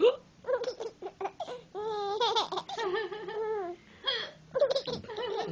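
A woman's hiccup right at the start, then a baby laughing in a string of short bursts and one longer wavering giggle, laughing at the hiccups.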